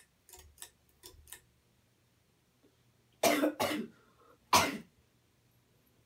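A person coughing twice, loudly, about three and four and a half seconds in, after a few faint clicks in the first second and a half, over a faint steady low hum.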